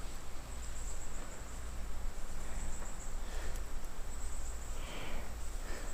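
Insects shrilling steadily in one high band, over a low outdoor rumble.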